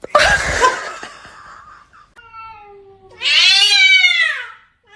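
Domestic cat meowing in long drawn-out yowls: a lower call about two seconds in, then a loud one that rises and falls in pitch, and another starting at the end. A short noisy burst comes first.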